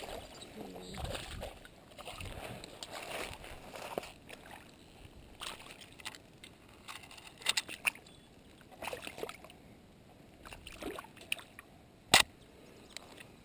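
Water sloshing and small splashes as a landed smallmouth bass is handled at the water's edge, with scattered knocks and clicks of handling. A single sharp click comes near the end.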